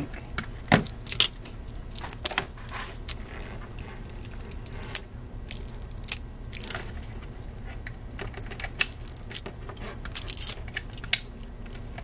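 Small side cutters snipping away the plastic at the stripped end of a shielded Cat6 cable: a scattered series of sharp clicks and snips, irregular and spaced out.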